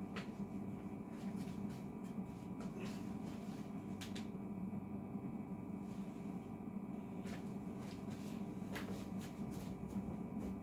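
A steady low room hum with a few faint, scattered clicks and knocks, like things being handled or moved about, coming more often near the end.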